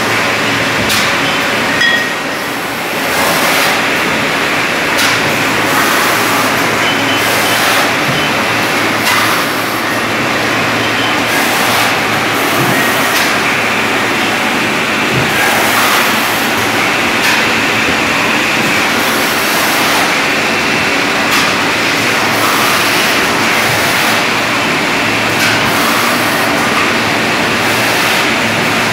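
Wine bottling line running: steady loud machine noise from a rotary bottle filler and capper, with frequent short clicks and knocks from the mechanism and the bottles moving through it.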